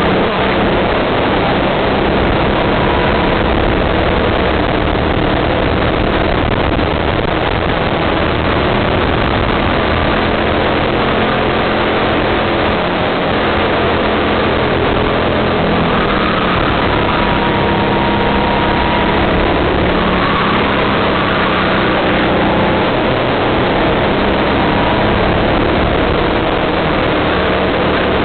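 Go-kart engine running at speed through corners and straights, heard from on board the kart: loud, steady engine noise whose pitch changes little.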